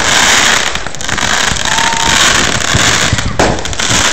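Fireworks going off close by: a dense, unbroken crackle with sharp bangs mixed in.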